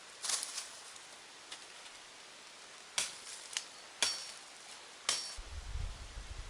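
A hand tool striking: about five sharp blows at uneven intervals, the last two with a brief metallic ring. A low rumble starts near the end.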